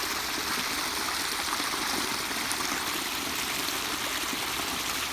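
Irrigation water flowing steadily in a flood-irrigation ditch.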